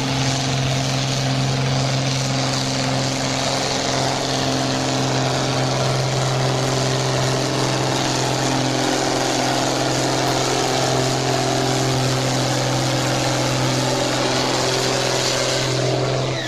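John Deere farm tractor's diesel engine running flat out under heavy load as it drags a weight-transfer pulling sled. It makes a steady, unbroken drone that holds one pitch throughout.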